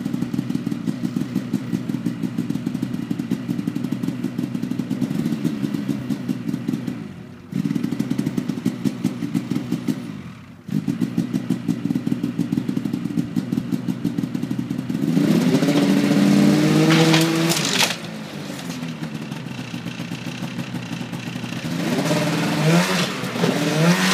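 Polaris Pro RMK 800 two-stroke snowmobile engine idling with a rapid pulsing note, briefly dropping away twice, then revved up about 15 s in and again near the end as the sled is driven up a ramp under load.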